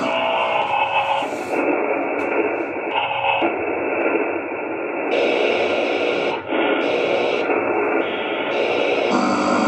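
Ghost-hunting spirit box sweeping through radio frequencies: continuous radio static that changes abruptly every half second to two seconds as it jumps between stations.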